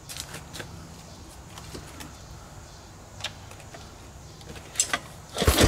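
A few light clicks of handling, then near the end a sharp pull of the recoil starter rope cranking the two-stroke, two-cylinder engine of a 1955 Scott Atwater 16 hp outboard over against compression.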